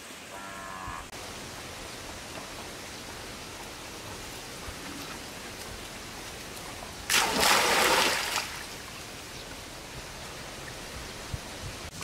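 Steady outdoor rushing noise like running water, with one louder rush lasting about a second and a half, seven seconds in.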